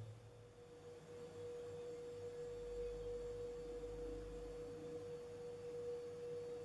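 A faint, steady pure tone held at one pitch over light background hiss.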